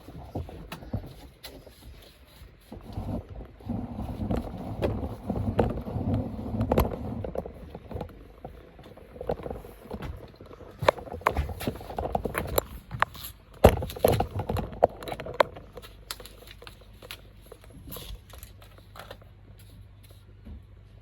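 Irregular knocks, clicks and scrapes of tools and parts being handled during air-conditioner installation work, with a low uneven rumble through the first half.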